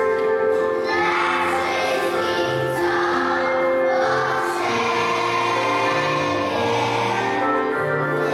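A choir of young children singing together over a steady instrumental backing, the voices coming in about a second in.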